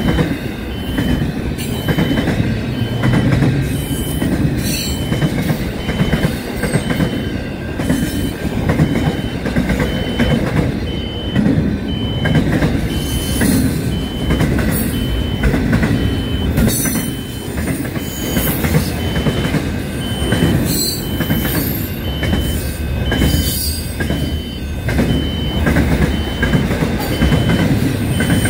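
Long container freight train passing close by: a steady rumble of steel wheels on the rails, broken by scattered clicks and rattles from the wagons.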